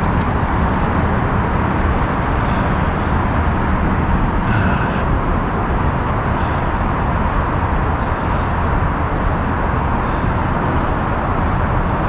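Steady, unbroken noise of heavy Interstate 5 freeway traffic.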